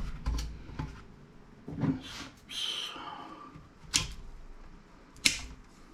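Handling of parts on a workbench: a few sharp knocks as objects are set down, and a brief scrape about two seconds in.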